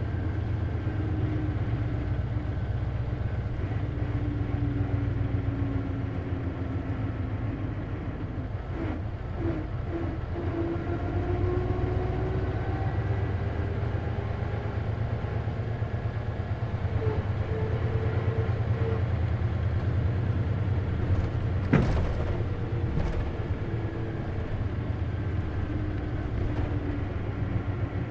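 Isuzu KC-LV380N city bus heard from inside while driving: a steady low engine drone with tones that rise and fall as it speeds up and slows. There is one sharp click about 22 seconds in. This bus is known for an odd running noise, which the owner thinks may be a manual-transmission symptom.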